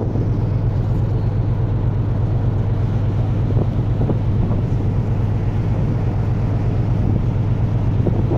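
Steady low hum of a cruise ferry's machinery, running evenly without change.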